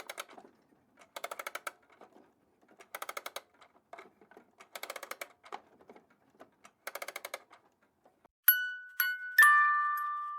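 Wind-up music box being wound: its key ratchet clicks rapidly in five short turns about two seconds apart. About eight seconds in it starts to play, with bright plucked notes ringing out one after another.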